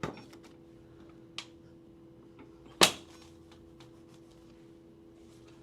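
A single loud, sharp crack about three seconds in, from a chiropractic jaw (TMJ) adjustment, with a couple of softer clicks before it. A faint steady hum runs underneath.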